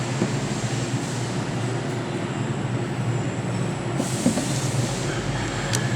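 Steady low rumbling background noise, brightening and hissier about four seconds in, with one sharp click near the end.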